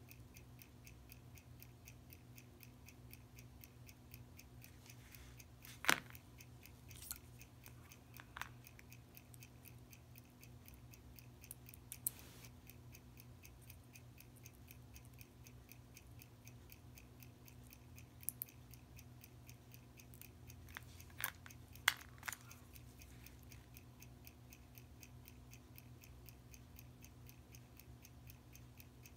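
Even, rapid ticking of a clock over a low steady hum, with a few brief clicks of steel tweezers touching the watch movement as the pallet fork is worked into its pivot hole.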